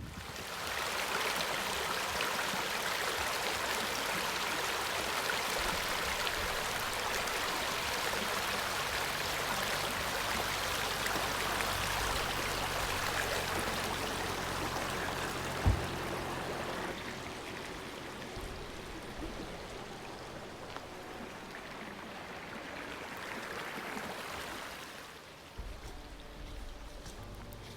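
Rushing water of a mountain stream, a steady roar that eases off a little past halfway and fades near the end. One sharp knock just past halfway.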